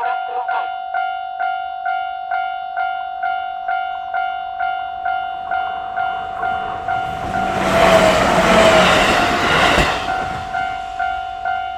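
Level-crossing warning bell ringing about twice a second, while a Yamagata Shinkansen train passes over the crossing from about six to ten seconds in, its noise swelling and then cutting off suddenly.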